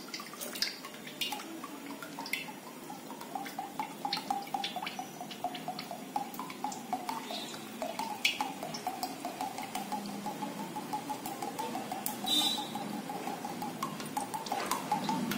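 Sunflower oil pouring from a plastic bottle into a steel kadai in a steady stream, with a quick repeating gurgle and a few light clicks.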